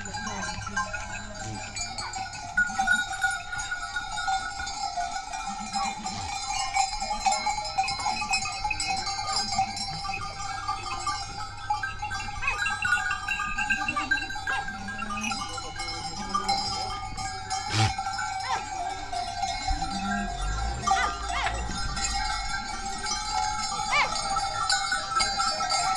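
A large herd of goats bleating over and over, many calls overlapping, with animal bells ringing steadily underneath.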